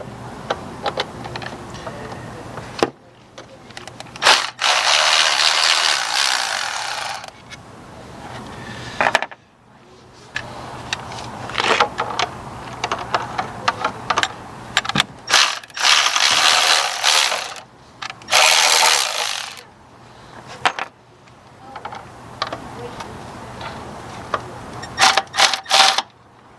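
Hand ratchet wrench clicking in several spells of a few seconds, working screws out of a throttle body, with scattered clicks and knocks of parts being handled in between.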